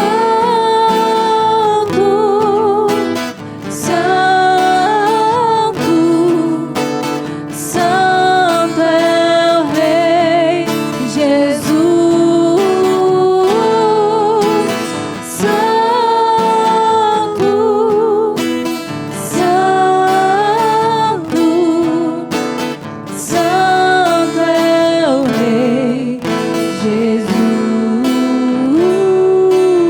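A slow worship song sung over strummed acoustic guitar, with long held notes that waver in a vibrato.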